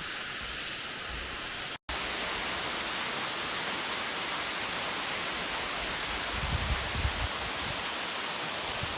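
Steady rushing of a waterfall. It cuts out completely for an instant about two seconds in and comes back slightly louder, with a few low rumbles near the end.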